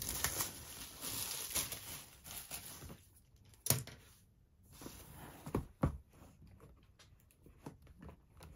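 A long cardboard kit box handled on a tabletop. There is rustling and scraping for the first few seconds, a sharp knock a little over halfway in as it is set down, then two more knocks close together and a few faint taps.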